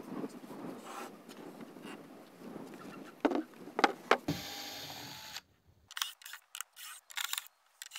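Wooden and board panels rubbed and knocked together as they are laid on a table, with a few sharp knocks. After that, a cordless drill driving screws in short, stop-start bursts.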